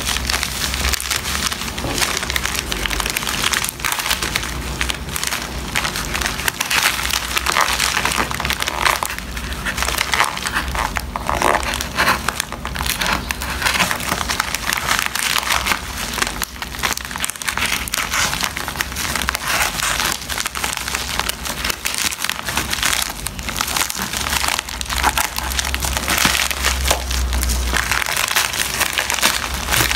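Plastic poly mailer bag crinkling and crackling without a break as hands pull at it and tear it open.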